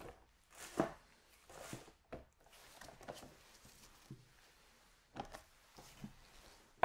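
Gloved hands handling frozen baguettes and their cardboard packaging, with soft scrapes, taps and rustles, then one sharp clack near the end as a ceramic plate is set down on a glass-topped kitchen scale.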